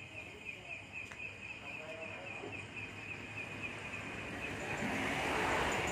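Insects, likely crickets, chirping in a steady, rapidly pulsing trill. Near the end a broad rush of noise swells up and becomes the loudest sound.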